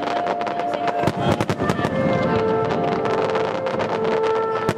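Fireworks going off in rapid succession, a dense run of sharp bangs and crackles, over music with long held notes.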